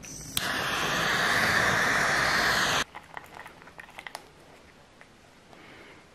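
A loud, steady hiss of rushing air that starts abruptly and cuts off sharply after about two and a half seconds. It is followed by a few faint clicks and taps.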